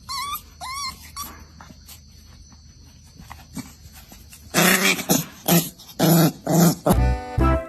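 A dog making a few short wavering whines, then, about halfway through, a run of loud growling bursts.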